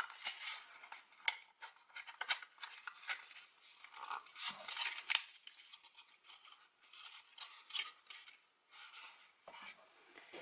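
Foam board pieces being pressed and slotted together by hand, giving an irregular run of short scratches, creaks and clicks, with a soft knock near the end as the assembled body is set down.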